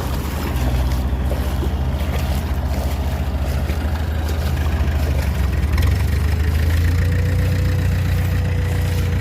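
Diesel engine of a combine harvester running steadily under load while towing a broken-down tracked tiller through a flooded field. The engine gets a little louder about two-thirds of the way in, and a steady whine joins it.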